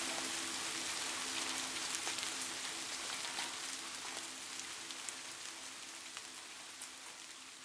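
Rain falling steadily, a dense hiss with scattered individual drops ticking, fading out gradually.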